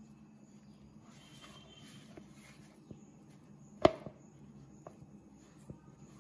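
Hands kneading soft bread dough in a plastic mixing bowl: faint squishing and rustling with a few light taps, and one sharp knock about four seconds in.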